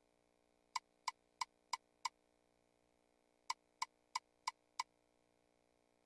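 Ultimate Fire Link video slot game's reel-stop sound effect: five short clicks about three a second as the five reels land one after another. Then, after about a second and a half of silence, a second spin ends with five more clicks.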